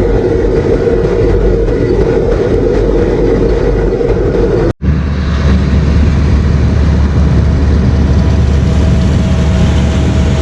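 Heavy farm machinery running steadily: a combine or tractor engine at working speed. A sudden cut about five seconds in switches to a deeper, lower-pitched run of the machine.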